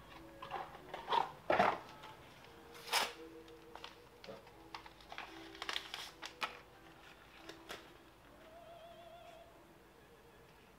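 Sparse experimental music: scattered sharp clicks and taps over faint sustained tones, with a short wavering tone about eight and a half seconds in.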